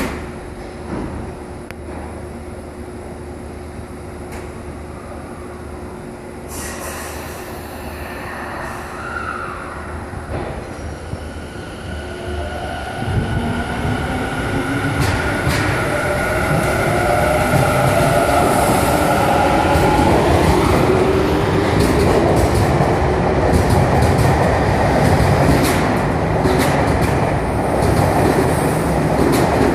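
A Tobu 50050 series electric train pulling out of an underground station. About thirteen seconds in, the train starts moving, and its traction motors give a rising whine over wheel and rail noise that grows louder as it picks up speed.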